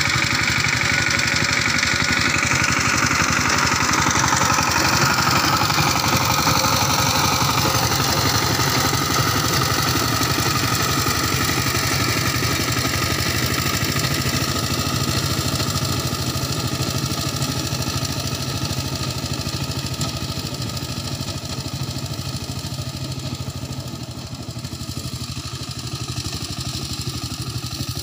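Two-wheel power tiller's single-cylinder diesel engine running steadily as it drives across the field, growing gradually fainter as it moves away.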